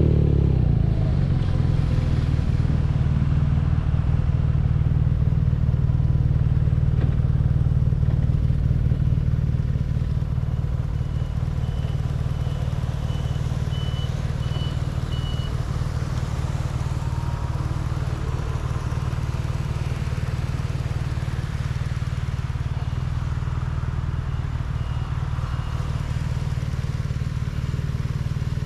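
BMW R nineT's air/oil-cooled boxer twin running steadily under way, easing to a lower level about ten seconds in. A faint high beeping repeats twice during the ride.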